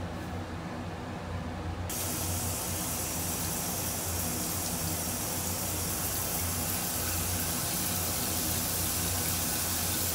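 Handheld shower head spraying water. The steady hiss of the spray starts abruptly about two seconds in, over a low steady hum.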